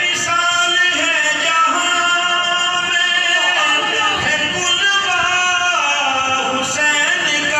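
A man's amplified voice chanting in a sung, melodic style, holding long drawn-out notes that glide between pitches.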